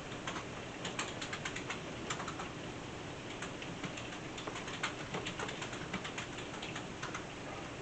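Irregular light clicks and taps in quick clusters over a steady hiss.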